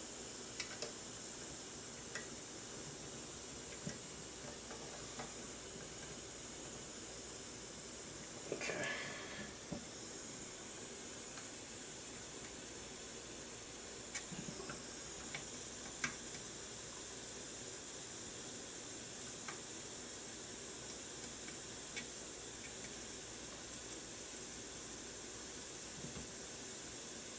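Steady high-pitched background hiss, with a few faint light clicks and taps from hands working on the frame.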